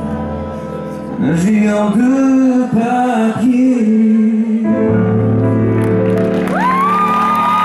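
A man singing a song live into a microphone over band accompaniment; the sung line bends and glides in pitch, and about six and a half seconds in a high note slides up and is held.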